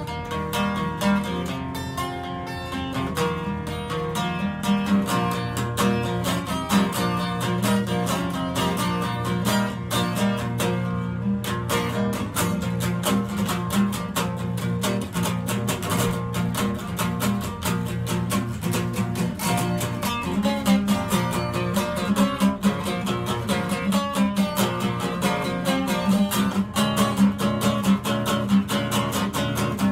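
Acoustic guitar strummed in a steady, even rhythm, an instrumental passage of a song.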